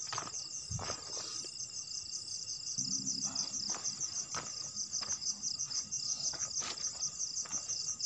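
Crickets chirping at night in a steady, rapidly pulsing high trill, with a few faint knocks.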